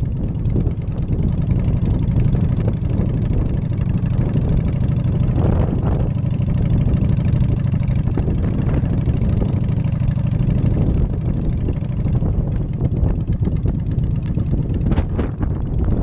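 Cruiser motorcycle engine running steadily while riding at low speed on a gravel road, with gusts of wind hitting the microphone near the end.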